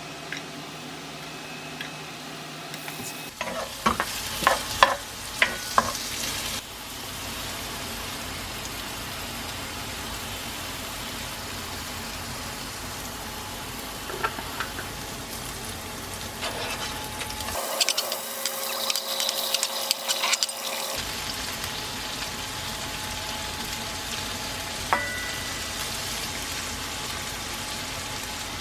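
Tteokbokki cooking in a pot: a steady sizzling, simmering hiss. Several sharp clinks of a utensil against the pot come a few seconds in, and another spell of stirring clatter follows later.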